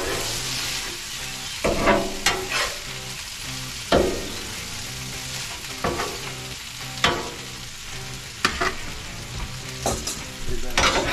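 Vegetables sizzling on a steel Blackstone flat-top griddle, with a metal spatula scraping and tapping the griddle surface every second or so as they are stirred and pushed aside.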